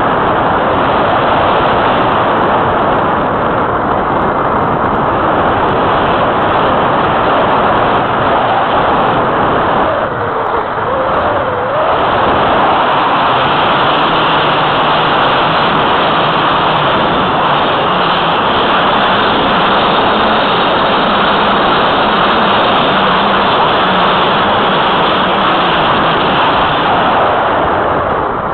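Steady rush of airflow over a keychain camera mounted on the wing of an Easy Glider Pro radio-controlled glider in flight. The noise dips briefly about ten seconds in.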